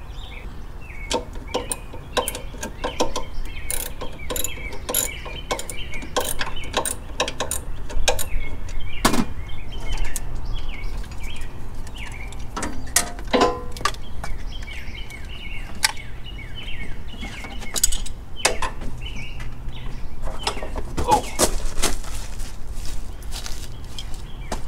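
Hand wrench clicking in short runs as mounting nuts are backed off a tractor bracket, then scattered clicks and knocks of the control box and its wiring being handled. Birds chirp throughout over a steady low rumble.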